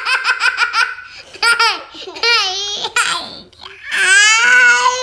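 Young children laughing hard in rapid pulses, then about four seconds in one small boy starts crying for real, a long high-pitched wail.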